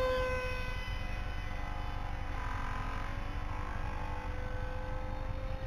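Electric Super Mega Jet motor and propeller of a foam RC F-35 in flight, a high whine that drops slightly in pitch and fades as the plane passes at the start, then grows again about two seconds in and holds steady. Wind rumbles on the microphone underneath.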